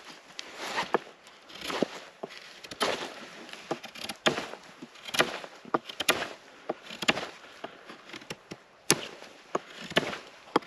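Fixed-blade knife whittling the end of a freshly cut wooden pole: short shaving strokes, about one a second, some with a sharp knock as the blade bites into the wood.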